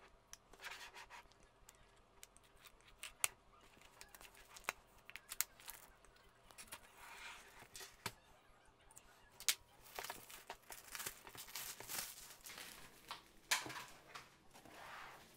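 Clear plastic shrink-wrap being slit and peeled off a long cardboard box: irregular crinkling and tearing of thin plastic, with scattered sharp clicks.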